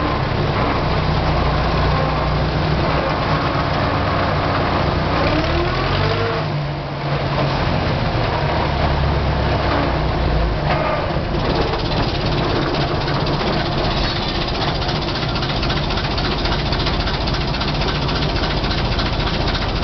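Dutra UE50 tractor's diesel engine running as the tractor drives along, with a brief dip in the engine sound about seven seconds in and a change in its pitch about four seconds later.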